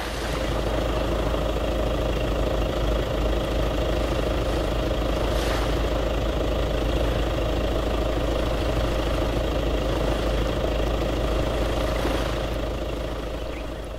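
Steady, even engine sound for a radio-controlled pickup truck driving slowly, fading away over the last two seconds.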